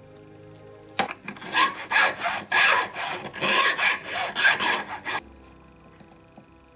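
A flat hand file rasping on a small silver bezel ring held against a wooden bench pin. Quick strokes, about three a second, start about a second in and stop about four seconds later.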